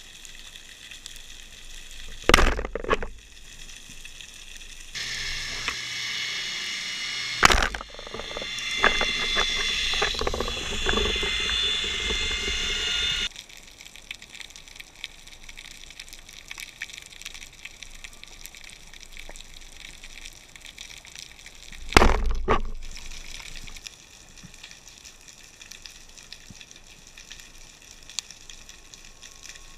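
Underwater ambience picked up by an action camera in a waterproof housing: a steady watery hiss, broken by three sharp thumps, and in the middle a louder stretch of hiss with a high whine that starts and stops abruptly.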